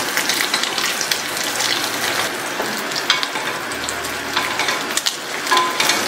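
Steaks sizzling steadily in hot butter in a cast-iron grill pan, with scattered small pops and crackles.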